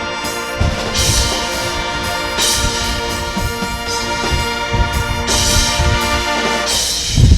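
High school marching band playing sustained brass chords over repeated percussion hits, ending on a loud final hit near the end.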